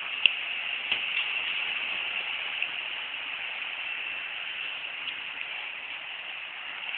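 Steady hiss, with a couple of faint clicks about a quarter second and a second in.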